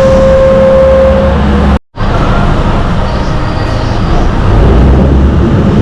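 Loud, steady noise of a vehicle on the move, with a steady whine that fades out a little over a second in; the sound cuts out for a moment just under two seconds in, then the travelling noise carries on.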